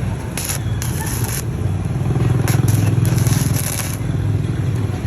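Stick (arc) welding with a 3.2 mm electrode on a Kimmie inverter welder: a steady crackling arc with a low grainy rumble that swells in the middle, and scattered sharp crackles of spatter.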